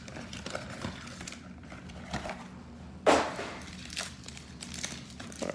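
Handling and rustling of trading-card packaging, a cardboard hobby box and its wrapped packs, with small clicks and one louder crinkle about three seconds in.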